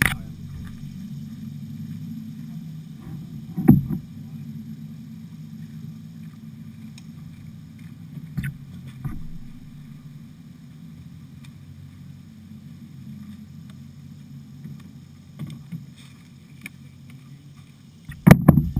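Kayak on a flooded river: a steady low rush of water with several sharp thuds, likely paddle strokes and the paddle knocking the hull, loudest about four seconds in and in a cluster near the end.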